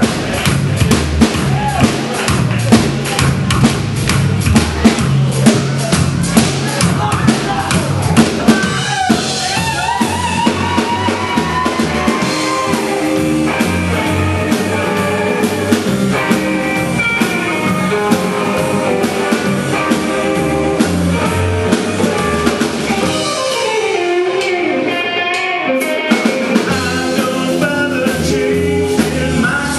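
Rockabilly band playing live: upright bass, electric guitars and drum kit.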